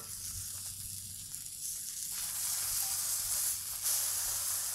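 Pork chops sizzling on a hot Blackstone flat-top griddle as they are turned over with tongs, a steady high hiss that grows louder about two seconds in.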